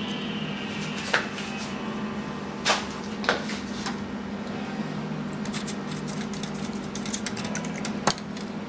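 A steady low hum with a few sharp clicks. From about five and a half seconds in comes a run of light ticks, ending in a sharp tap just after eight seconds, as a plastic stick stirs liquid in a thin plastic cup.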